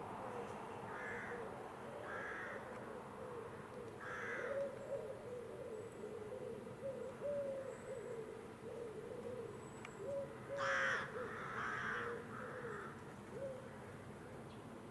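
Crows cawing outdoors: a few single harsh caws spaced about a second apart, then a louder cluster of caws near the end. Under them runs a low, wavering string of short pitched calls from another bird.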